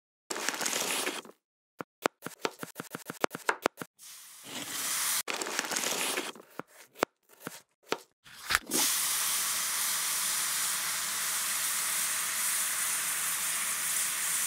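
Knife chopping vegetables on a wooden cutting board in quick, even strokes, with short bursts of rustling and scattered knocks. For the last six seconds or so, diced carrot, celery and onion (a soffritto) sizzle steadily in oil in a pan.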